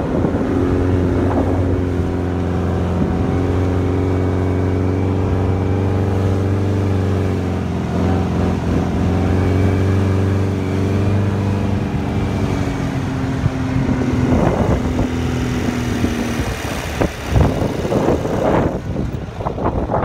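Dune buggy engine running at a steady speed while the buggy drives over sand, heard from on board. In the last few seconds the engine fades and gusts of wind buffet the microphone.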